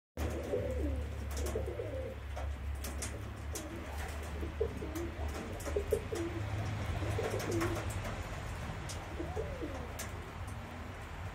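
Domestic pigeons cooing over and over in a loft, with a steady low hum beneath and a scattering of sharp light clicks.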